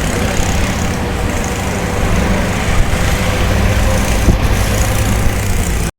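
A bus engine running steadily under road and traffic noise, mostly low rumble. It cuts off suddenly near the end.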